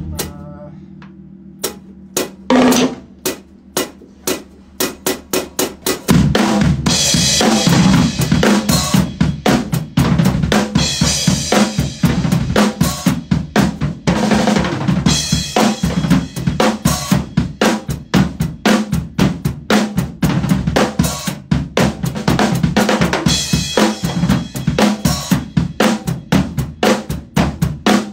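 Acoustic drum kit played solo with no backing music: a few scattered hits for the first six seconds, then a full, steady groove of kick drum, snare and cymbals, with crash cymbals washing over it several times.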